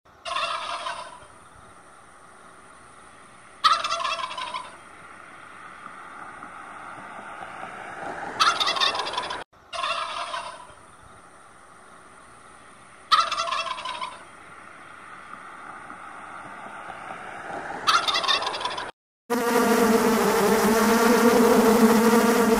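Short animal calls, each about a second long, repeated six times at uneven gaps over a low steady hiss. Near the end they give way to a different steady, pitched sound.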